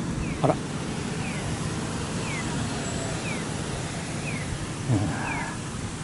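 Japanese audible pedestrian crossing signal chirping: a short, falling, bird-like cheep about once a second, over steady street traffic noise. Two brief louder bumps come about half a second in and about five seconds in.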